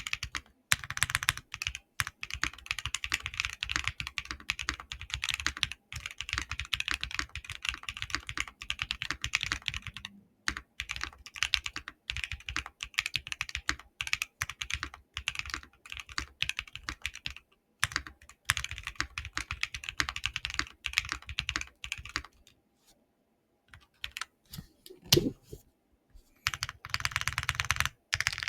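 Typing on a Mode SixtyFive mechanical keyboard with Keygeek Y2 switches hand-lubed with 205, a POM plate and GMK keycaps. Runs of fast keystrokes with a deeper, creamy sound. Near the end the typing pauses briefly, then one louder stroke and more typing.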